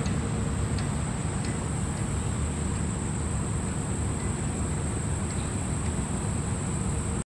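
Steady rushing outdoor noise beside the flowing spring river, heaviest in the low end, with a thin steady high hiss above it. It cuts off abruptly near the end.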